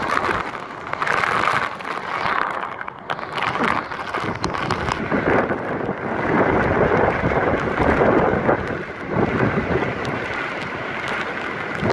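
Hurricane-force wind and heavy driving rain at the storm's peak, the wind coming in gusts that swell and ease every second or two.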